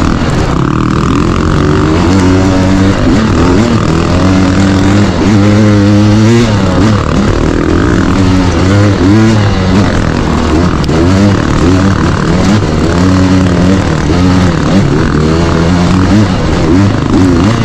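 Dirt bike engine running hard on off-road singletrack, its pitch rising and falling again and again as the throttle is opened and shut over the rough trail.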